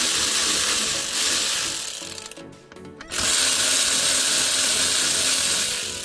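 Milwaukee cordless ratchet running, backing out the T20 Torx screws that hold a gear shift module. Two runs, with a pause of under a second between them a little past the middle.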